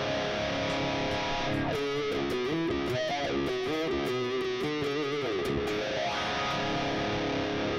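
Overdriven electric guitar, a Les Paul through a Fractal Audio FM9 lead preset with a tube-screamer drive, delay and reverb: a ringing chord, then a run of single lead notes with vibrato from about two seconds in, settling back into a sustained ringing chord.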